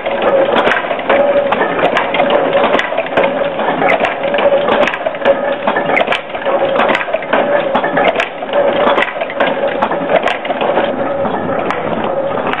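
Historic nail-making machine running, a dense, rapid metallic clatter of its working strokes with a ringing tone that comes and goes in a steady rhythm.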